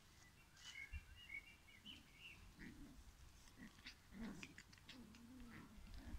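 Faint play growls from Japanese Spitz puppies wrestling, in short wavering bursts through the second half. A bird chirps in the background during the first couple of seconds.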